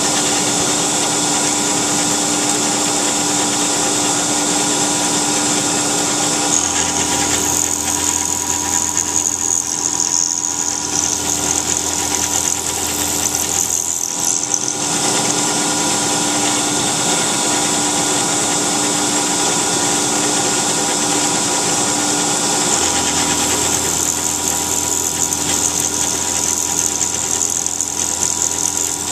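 CNC milling machine's end mill cutting aluminum under flood coolant: a steady machining noise with a constant whine and hiss.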